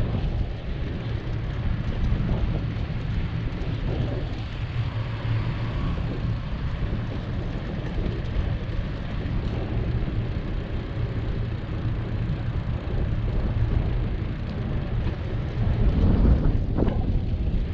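Steady low rumble of wind buffeting a handlebar-mounted camera's microphone on a moving bicycle, with road noise from the tyres rolling on asphalt. The rumble swells briefly near the end.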